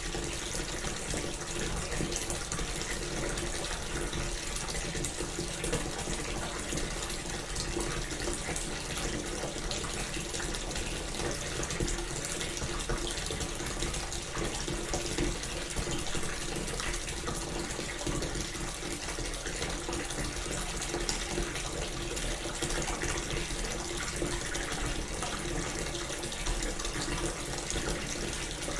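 Bath tap running steadily into a bathtub, a constant splashing rush of water.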